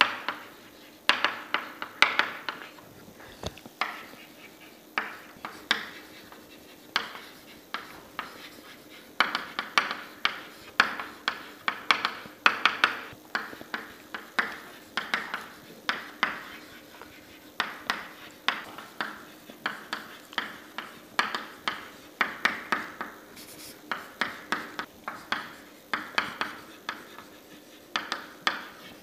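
Chalk writing on a blackboard: a long run of sharp taps and short scratches in quick irregular clusters as each letter is struck and drawn.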